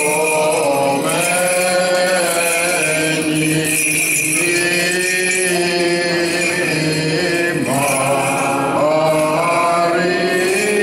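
Greek Orthodox Byzantine chant: voices singing long, held, gliding lines, with the light jingling of a swung censer's bells.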